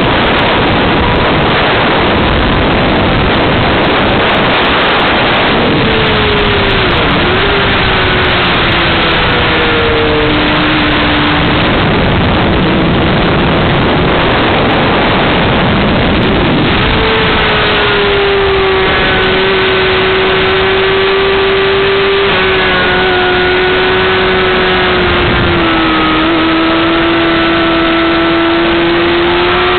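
Heavy wind noise over the camera microphone at speed, with a 2007 Honda CBR600RR's inline-four engine running at high revs underneath. Its pitch comes through about six seconds in, drops in steps and climbs again near the end.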